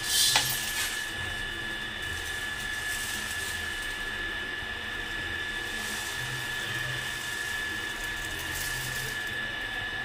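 Pearl millet grains poured from a steel plate into a metal kadhai, a rattling hiss of grain sliding onto metal that is loudest in the first second, with fainter pours later. A steady high-pitched whine runs underneath throughout.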